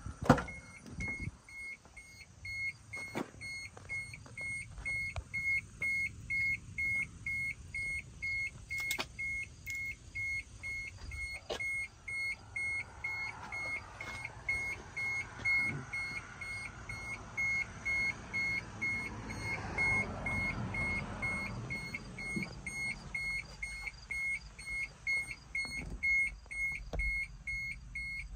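A sharp click near the start, then the cab's electronic warning beeper sounding a steady high beep about two to three times a second, over a low rumble, in a 1991 Toyota LiteAce truck with the ignition on.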